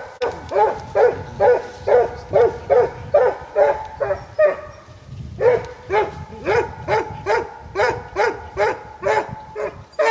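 Plott hound barking at bay at a wild boar: a steady run of pitched barks, about two to three a second, with a short break a little before the middle.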